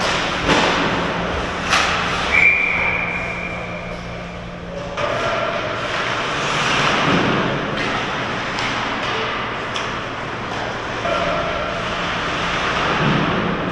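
Ice hockey play in an indoor rink: a constant wash of skate blades scraping the ice, with a few sharp stick-and-puck knocks in the first three seconds. A thin, high, steady tone sounds for about two seconds starting a couple of seconds in, and a low steady hum runs beneath.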